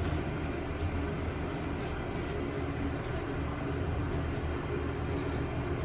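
A steady low mechanical hum from a running machine, unchanging throughout.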